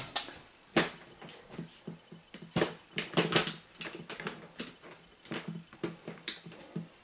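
Scattered short clicks, knocks and rustles of things being handled and moved about in a small room.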